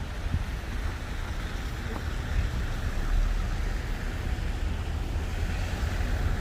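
City street traffic running steadily, with a low, uneven rumble of wind on the microphone.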